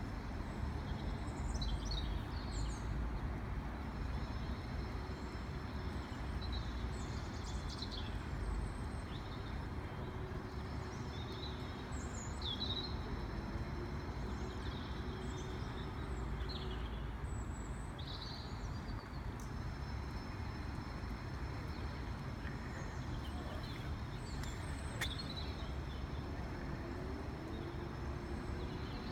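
Outdoor ambience: a steady low rumble with small birds chirping and calling throughout, in short, high notes.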